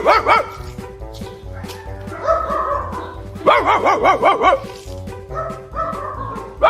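A dog barking in three short rapid volleys over background music.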